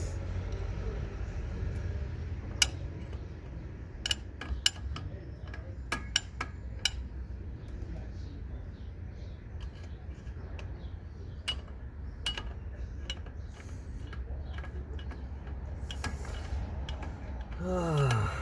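Sharp metallic clinks and knocks of hand tools and metal car parts being handled, scattered and irregular, over a steady low hum. Near the end a brief sound slides down in pitch.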